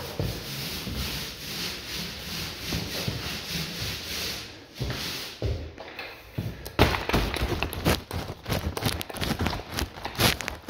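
Paint roller on an extension pole rolling paint onto a wall: a rhythmic rubbing swish, stroke after stroke. From about seven seconds in it is broken by a run of sharp knocks and taps.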